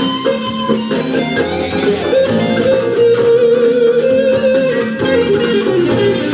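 Live band playing a funk-rock instrumental passage, electric guitar out front over bass guitar and drums, with a long held note through the middle.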